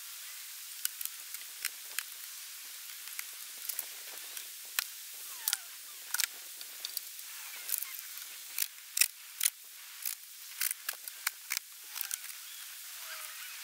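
Irregular sharp clicks and crinkles of hand work on the camper's wrapped side wall, some much louder than others, over a steady high outdoor hiss.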